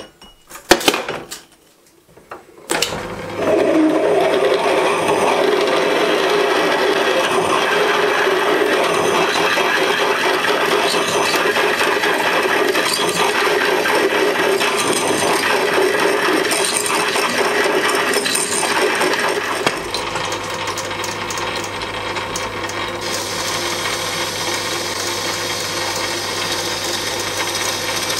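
A few clicks and knocks, then a micro metal lathe starts and runs steadily while a large twist drill cuts into the spinning metal workpiece, with a steady tone over the cutting noise. About twenty seconds in the sound drops and changes as a boring bar takes a cut inside the drilled hole.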